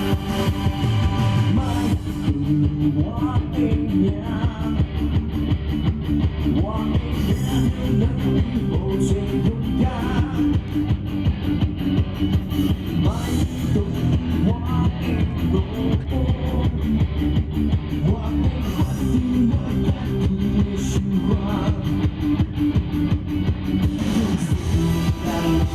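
Live rock band playing an up-tempo song, with drums keeping a steady beat under guitar and a bending melodic line.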